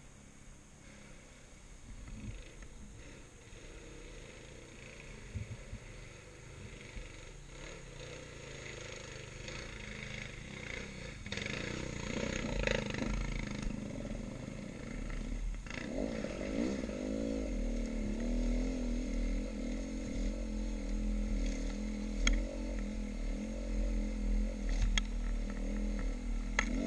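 Dirt bike engine, faint and low at first, then running and revving from about halfway in, its pitch rising and falling as the bike rides. A few sharp clicks near the end.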